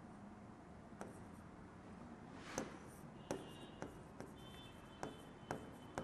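Pen writing on an interactive display board: a scattering of faint taps and scratches from the pen tip on the screen, with a faint thin squeak now and then.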